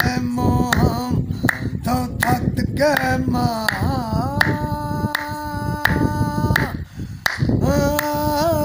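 A man singing unaccompanied, clapping his hands to keep time at roughly two claps a second. Midway he holds one long note, then pauses briefly before singing on.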